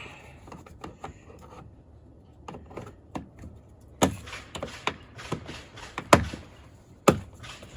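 Ford Excursion door trim being snapped and pressed back together: a run of small clicks and knocks, with a few sharper knocks in the second half, the loudest about six seconds in.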